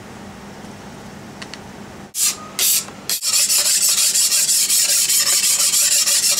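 Abrasive block rubbed against the cut edge of a black glass plate to smooth it. Two short scraping strokes come about two seconds in, then fast, even back-and-forth rubbing from about three seconds on.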